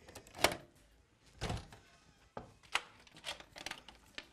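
A run of sharp clicks and knocks, the loudest about half a second in. A door's locks and latches are being undone and a wooden brace board is pulled from under the doorknob and set against the wall.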